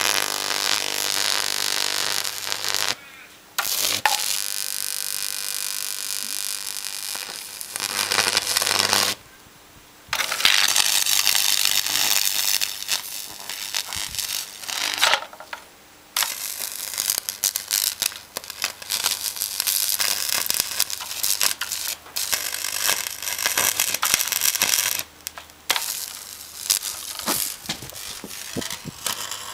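High-voltage arc from a microwave oven transformer burning into a computer motherboard: a harsh crackling buzz over a low hum. It cuts out briefly about four times and strikes up again.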